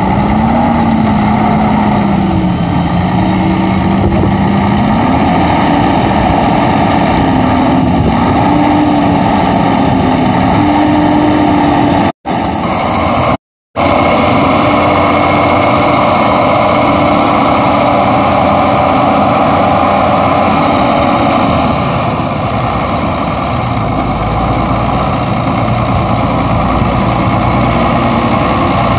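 Škoda 180 wheel loader's diesel engine running under load, its pitch rising and falling as it works the bucket. The sound breaks off for a moment about halfway through, then goes on at a steadier pitch.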